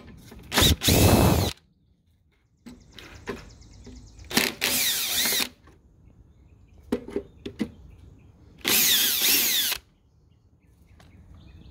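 Makita cordless drill-driver backing bolts out of a lawn mower's recoil starter housing, in three short runs of about a second each: near the start, in the middle and near the end. The motor's whine rises and falls in each run. A few small clicks come between the second and third runs.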